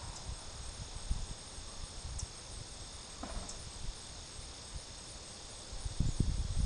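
Steady high-pitched chirring of crickets. Low rumbles of wind on the microphone come in near the end.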